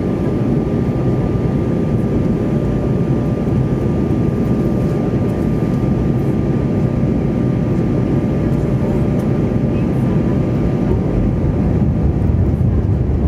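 Steady cabin noise inside an Airbus A320 on descent: engine and airflow noise heard through the fuselage as a low, even rush, with a faint steady whine over it.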